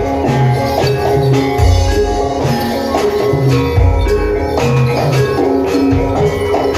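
Traditional Javanese jaran kepang accompaniment music: pitched metal percussion repeats a busy melodic pattern over deep low strokes about every two seconds.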